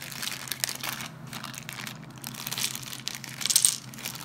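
Thin clear plastic bags crinkling and rustling as they are handled and opened by hand, in irregular spurts, loudest about three and a half seconds in.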